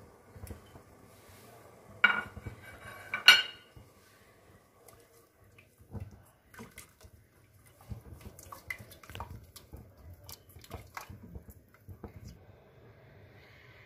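Two loud ringing clanks of kitchenware about two and three seconds in, then an orange silicone spatula stirring spiced tamarind water in an enamel pot, with scattered light knocks and scrapes against the pot.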